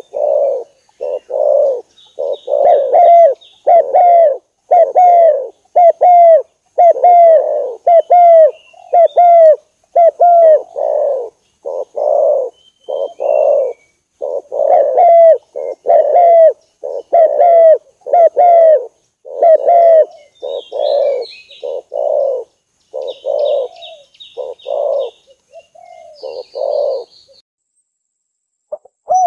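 Spotted dove (terkukur) cooing: a long, loud run of low coo notes repeated in quick succession, each with a short upturn, breaking off about two seconds before the end. Fainter, higher chirping of small birds is heard above it in places.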